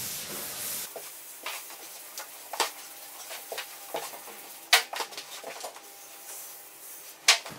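Blackboard eraser wiping chalk off a chalkboard. There is a scrubbing hiss in the first second, then quieter rubs and scattered light taps, with two sharp knocks, one about the middle and one near the end.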